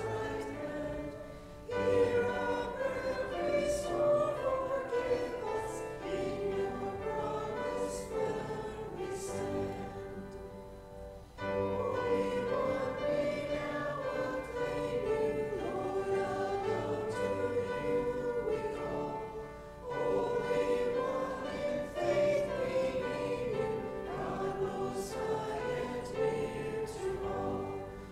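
Congregation singing a hymn with piano accompaniment, in phrases with short breaths between them.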